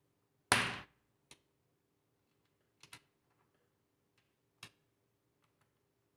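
A sharp knock about half a second in, then a few light clicks, as a screwdriver and the laptop's plastic back cover are handled while the cover screws are tightened.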